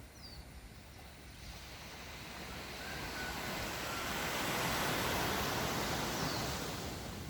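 A sea wave washing in on the shore, its rushing noise swelling to a peak about five seconds in and then easing back.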